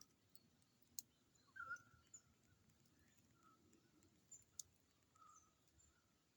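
Near silence with faint, short bird chirps repeating every second or so, and a couple of sharp ticks.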